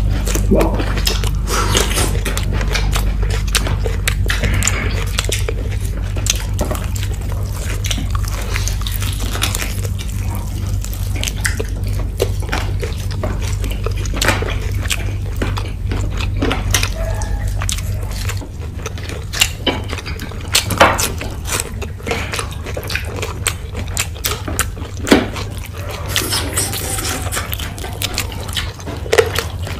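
Close-miked eating sounds: wet chewing and lip smacks with frequent sharp mouth clicks. A low steady hum underneath stops about two-thirds of the way through, leaving the smacks more exposed.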